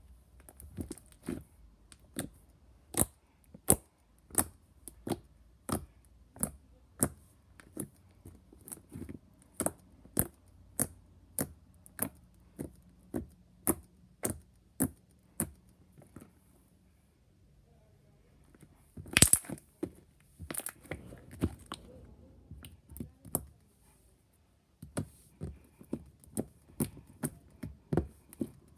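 White glue slime being squeezed and played with by hand, giving a run of sharp clicks and pops about one to two a second. The clicks pause briefly, then the loudest pop comes about two-thirds of the way in, followed by another short gap before the clicking resumes.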